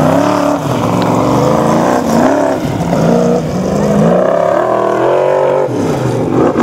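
Formula Offroad buggy's engine revving loudly as it climbs a steep sand slope, its pitch swinging up and down about once a second as the driver works the throttle and the wheels scrabble for grip.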